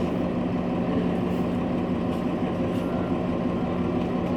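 Nova Bus LFS city bus engine running steadily, heard from inside the passenger cabin: a constant low hum with a steady drone under the rumble of the ride.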